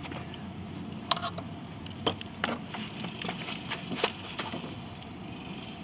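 Scattered light clicks and taps of hands and tools working at a mower's fuel-line connection on the carburetor, over a steady outdoor background hiss.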